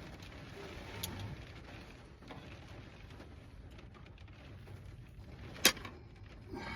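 Quiet handling noise of small parts and tools being worked on a mini bike, with a faint click about a second in and a single sharp click near the end.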